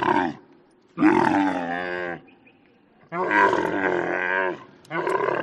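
Camel calling: a series of long, wavering calls, each a second or so, with short pauses between them.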